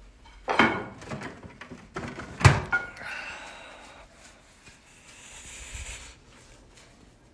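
Thuds and knocking, the loudest a single sharp knock about two and a half seconds in, followed by rustling and a faint hiss.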